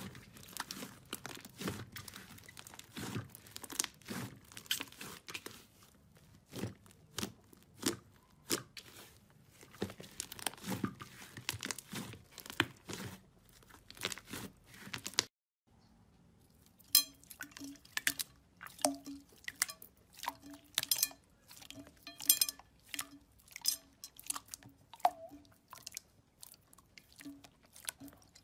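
Hands squeezing and kneading thick slime, with a dense run of small crackling clicks and pops. About halfway through the sound drops out for a moment, then gives way to sharper, sparser clicks and pops from clear slime being pressed, over a faint steady low hum.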